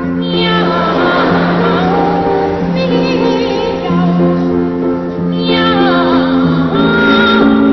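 Two boy sopranos singing a comic cat duet, meowing in high sliding phrases that swoop up and down, over steady piano accompaniment.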